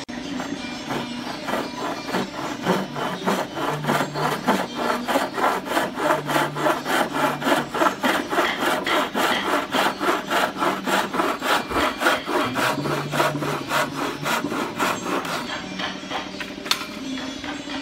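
Hand sawing with a wooden-framed bow saw, its thin steel blade cutting across a wooden trim strip in quick, even back-and-forth strokes, about four a second. The strokes stop about two seconds before the end as the cut finishes.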